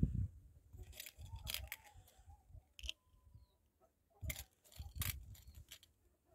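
Sparse sharp clicks and short scrapes of lead pellets being handled: fingers picking pellets out of a metal tin and pressing them one by one into an air rifle's 10-shot rotary magazine.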